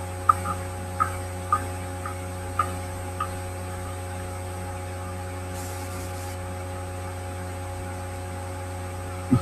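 Steady electrical mains hum with a few fixed tones. Small short ticks come about twice a second over the first three seconds, then stop.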